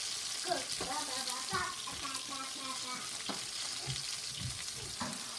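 Food sizzling in a frying pan on the stove, a steady hiss, with a couple of small clicks from the pan or utensils.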